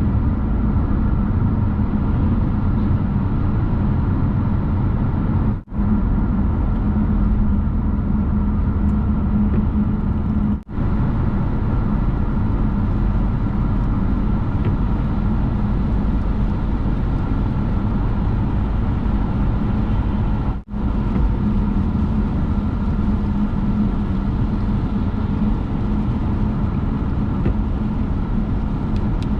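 Steady road and engine noise inside a car cruising on the highway, heavy in the low end. The sound drops out for an instant three times.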